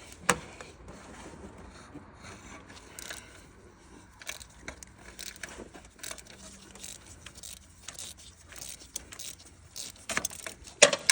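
Metal hand tools clinking and scraping against engine parts and bolts: irregular short clicks and knocks, with a sharp clank just after the start and a louder flurry of clatter near the end.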